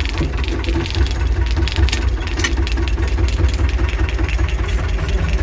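T-25 tractor's two-cylinder air-cooled diesel engine idling steadily with a pulsing note.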